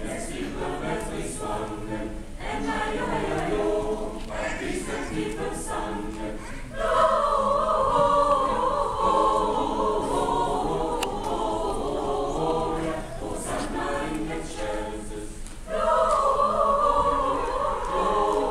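Mixed choir of men's and women's voices singing, swelling louder about seven seconds in and again near the end.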